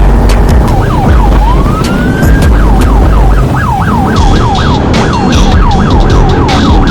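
Electronic siren sounding one rising wail, then switching to a fast yelp of about three up-and-down cycles a second. A heavy low rumble runs underneath.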